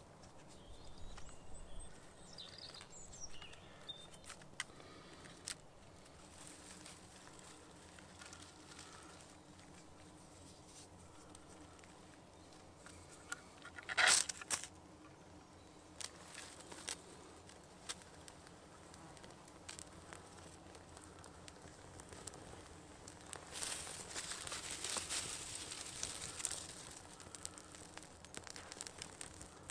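One sharp rasping scrape about halfway through, a fire steel being struck to light a tinder bundle. Later comes a stretch of crackling and rustling as the tinder catches and dry twigs are fed over the small flame, with small clicks of handling throughout.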